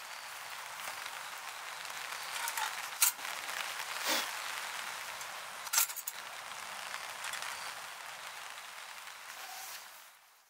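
Wood campfire burning: a steady hiss with scattered small crackles and three sharp pops, the loudest about three, four and six seconds in. The sound fades out near the end.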